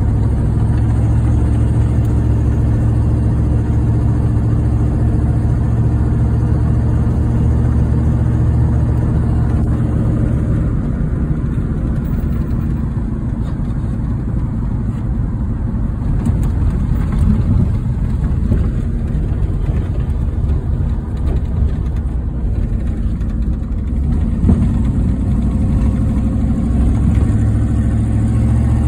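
Old Dodge truck's engine running as it drives, heard from inside the cab. A steady low engine note turns rougher and noisier from about ten seconds in and settles back to a steady note a few seconds before the end.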